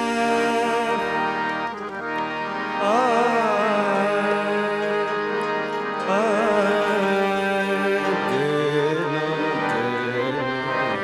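A male singer sings a wordless opening alap, holding long notes with quick wavering runs, over the steady reedy chords of a harmonium.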